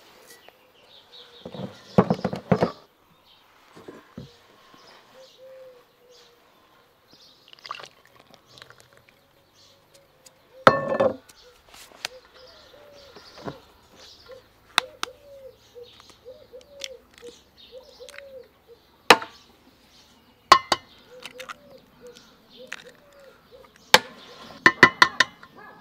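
Eggs knocked against the rim of an enamel bowl and broken into flour: sharp cracks and knocks in small clusters, with a quick run of them near the end. A bird calls softly and repeatedly in the background.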